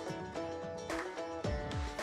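Instrumental music with plucked-string notes over a steady beat.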